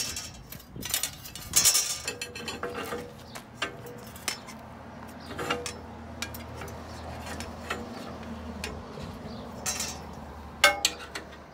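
Metal clinks and knocks of a wrench and a steel square against the aluminium crop-divider mount while its height is set and the bracket tightened. The loudest knocks come about two seconds in and again near the end.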